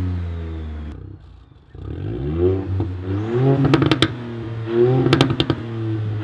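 Ford Fiesta ST Mk8's 1.5-litre turbocharged three-cylinder revving through an aftermarket GPF-back exhaust. The revs fall away, then come two throttle blips, each followed by a string of sharp pops and crackles as the revs drop back.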